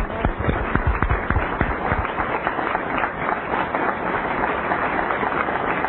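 Studio audience applauding: a few separate claps at first, then dense, steady clapping.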